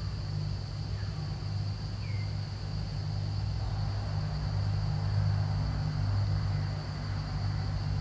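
Forest ambience: a steady high-pitched insect drone over a steady low rumble, with two faint short chirps about one and two seconds in.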